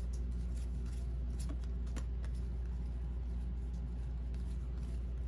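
Steady low hum, with a few faint short clicks from baseball cards being handled.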